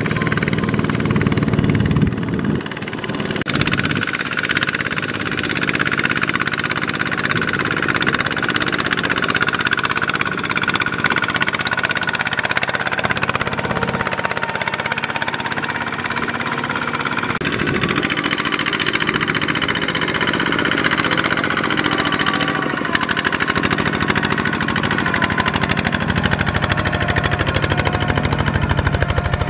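Single-cylinder diesel engine of a two-wheel walking tractor running steadily under load, with a rapid even firing beat, as it hauls a loaded trailer through mud.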